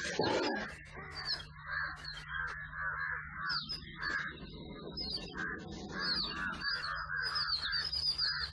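Birds giving harsh, repeated alarm calls with higher chirps mixed in: the commotion that a crested serpent eagle stirs up among other birds. A low steady hum runs underneath.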